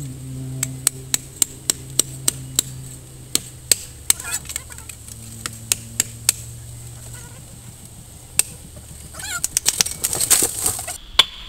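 Husqvarna chainsaw dropping from cutting speed to a steady idle that fades out, while the cut trunk of a dead hybrid poplar gives a string of sharp cracks and pops. Near the end a dense burst of cracking and snapping comes as the top breaks off and falls.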